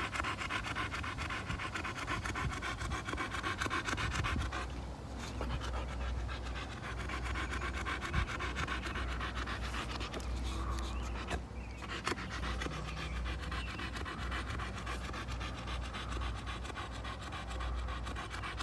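A boxer dog panting rapidly with her mouth open, winded from chasing a ball. She pauses briefly a couple of times.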